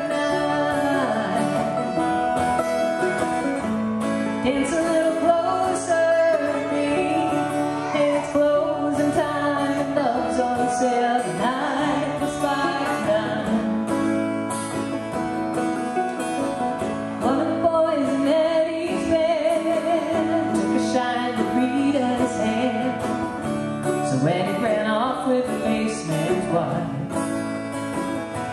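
Acoustic guitar and mandolin playing a country-folk song live, with a woman singing.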